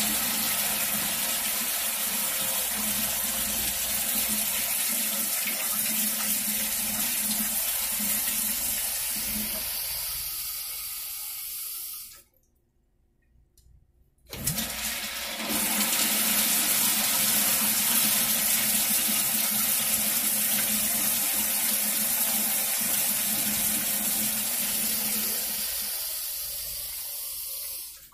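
Toilet flushometer valve flushed twice by hand. Each flush is about twelve seconds of loud rushing water that cuts off sharply, the second starting about two seconds after the first stops. These are test flushes of a newly resealed spud gasket.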